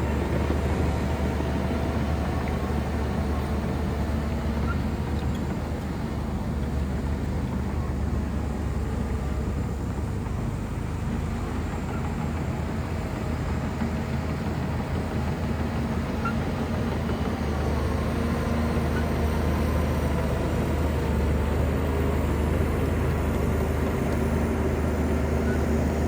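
Shantui bulldozer's diesel engine running steadily under load, a deep continuous drone with no breaks.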